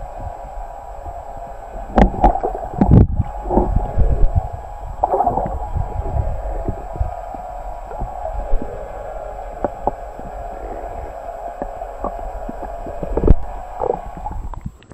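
Muffled underwater sound picked up by a submerged camera: a steady hum with low rumbling and gurgling, broken by several dull thumps, the loudest about two to three seconds in and again near the end.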